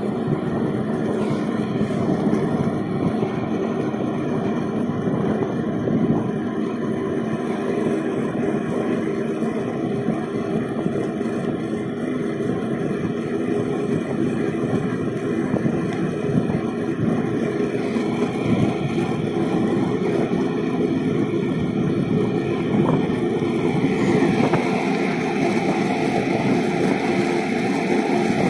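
Steady road noise of wheels rolling fast over fresh asphalt, with wind on the microphone and a low, even hum. Near the end the noise turns brighter and hissier.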